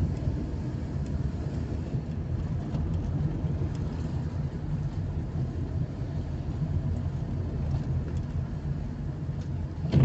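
Car engine and tyre noise heard from inside the cabin while driving, a steady low rumble.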